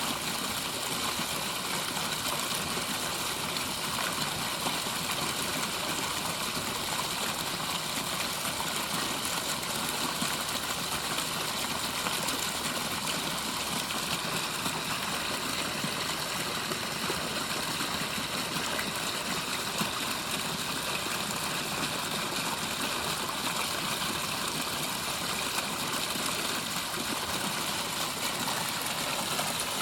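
Backyard pondless waterfall running, water pouring and splashing over the rocks in a steady rush. The rocks have been freshly sealed with waterfall foam so more of the flow runs over the surface.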